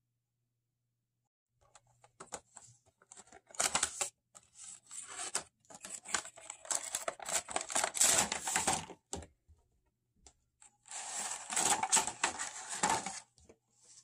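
Cardboard Funko Pop window box being opened by hand and the vinyl figure pulled out of its plastic packaging: irregular rustling and crinkling of cardboard and plastic. It starts a couple of seconds in, pauses briefly, then comes back in a last busy burst near the end.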